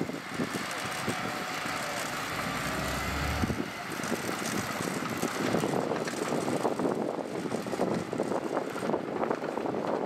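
Diesel earthmoving machinery working in sand: an engine runs with a wavering pitch for the first few seconds, then a dense, rapid clatter of knocks builds through the rest.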